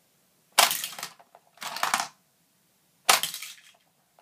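Hot Wheels Blaster Rig toy truck launching die-cast cars: three sharp snaps, about a second apart, each trailing off in a brief rattle.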